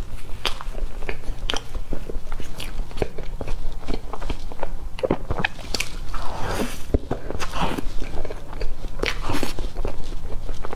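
A person eating soft cream layer cake from a metal spoon: wet chewing and lip-smacking mouth sounds, with many short sharp clicks throughout.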